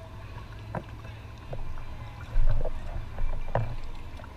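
Kayak on the water: short knocks and water sloshing against the hull over a low rumble, with a heavy thump about two and a half seconds in.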